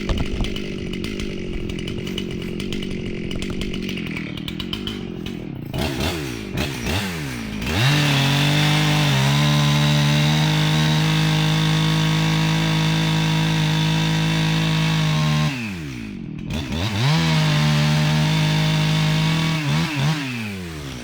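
Husqvarna 262XP two-stroke chainsaw running at a low, steady speed, then revved up about six seconds in and held at high speed as it cuts through a tree, the felling back cut. It drops back briefly past the middle, revs up and cuts again, then eases off near the end.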